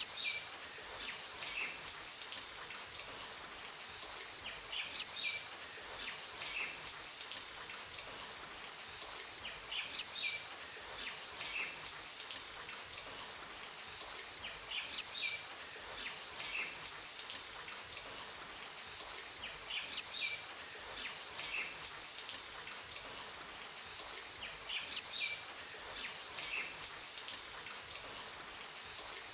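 Steady rain hiss with bird chirps, a rain-and-birds ambience in which the same few chirps come back about every five seconds, as in a looped recording.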